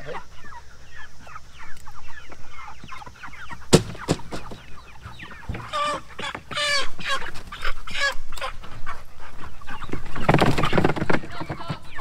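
A flock of young white meat chickens clucking and peeping, with a single knock about four seconds in and a louder flurry of calls and scuffling near the end.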